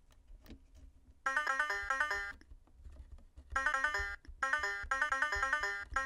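Circuit-bent LeapFrog Fridge Farm toy's sound chip, its contacts 2 and 6 bridged with a resistor wire, spitting out a glitchy loop of rapid bleeping electronic notes in three short bursts. The first comes about a second in, the other two close together near the end.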